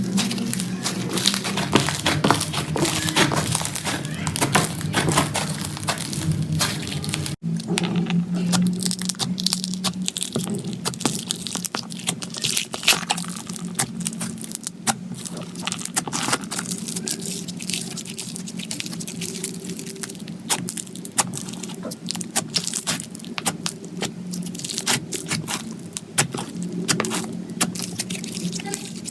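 Slime being pressed, squeezed and stretched by hand, making dense, irregular crackling and popping clicks. The sound breaks off for an instant about seven seconds in and goes on in another clip.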